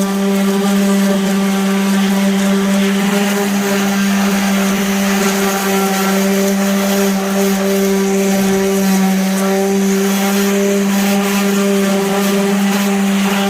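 A 5-inch power sander fitted with an oversized 6-inch disc, running steadily with a constant motor hum and a hiss of abrasive against the car's body panels.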